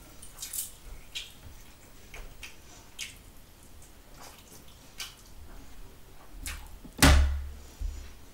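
Close-miked eating sounds: wet lip smacks and mouth clicks from someone chewing rice and gravy eaten by hand, with a louder thump about seven seconds in.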